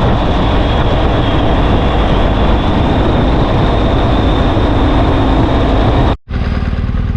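Vehicle driving along: loud, steady road and engine noise with a thin high whine on top. It drops out abruptly for a moment about six seconds in, then carries on.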